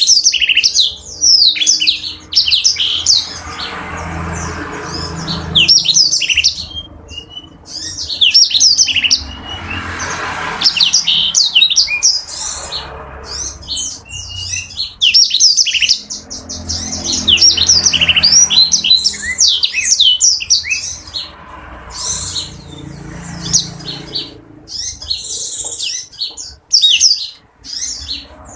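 Blackthroat (black-throated canary) singing a long, fast twittering song of rapid high chirps and trills, with only brief pauses.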